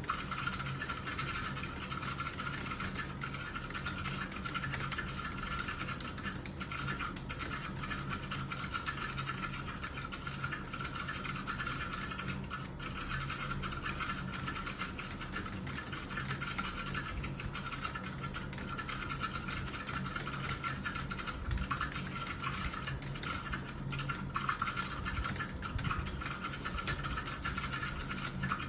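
Continuous fast typing on a computer keyboard: a dense, unbroken run of key clicks.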